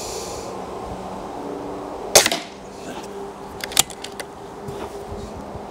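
A single shot from a .22 calibre PCP air rifle about two seconds in, a sharp report, followed a second and a half later by a few lighter clicks.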